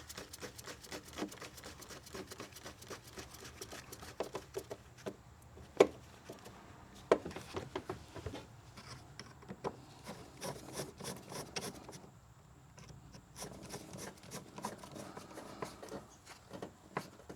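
Screwdriver tightening the air box clamp back down: dense rapid clicking and scraping, with a few sharper knocks near the middle and a brief lull in the last third.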